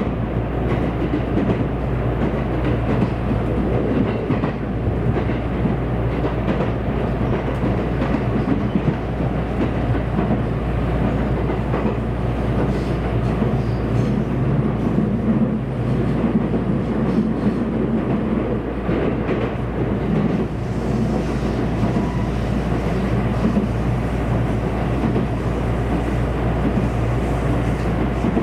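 JR West 227 series electric train running at speed between stations, heard from inside the passenger car: steady running noise of the wheels on the rails and the car body.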